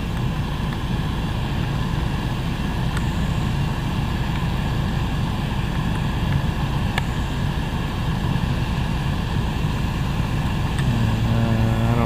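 2011 Suzuki SX4's 2.0-litre four-cylinder engine idling with the air conditioning and blower fan running, a steady drone heard from inside the cabin. A couple of faint clicks come from dash trim being handled.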